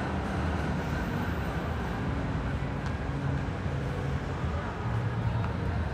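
Steady low rumble of city traffic and urban background noise, with no single event standing out.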